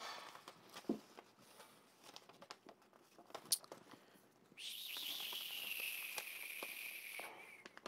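Pages of a book and loose papers being handled and leafed through, a scatter of soft rustles and clicks. In the second half a high whine, slowly falling in pitch, lasts about three seconds and is the loudest sound.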